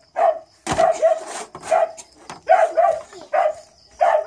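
A dog barking repeatedly: short, sharp barks, about two a second.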